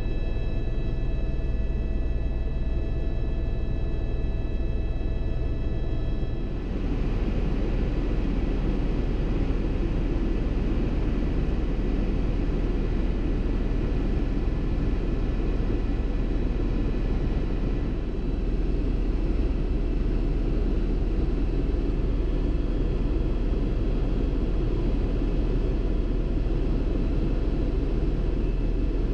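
Helicopter in flight heard from inside the cabin: a steady, loud drone of engine and rotor. It carries a whine of several steady tones that changes abruptly about seven seconds in to a rougher rushing noise with only a faint whine.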